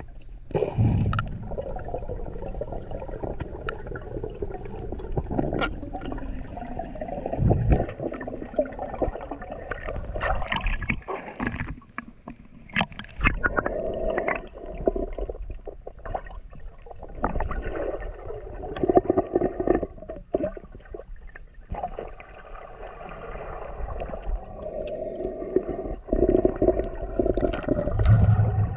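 Muffled gurgling and sloshing of water heard through a submerged GoPro in its waterproof housing, with scattered clicks and knocks.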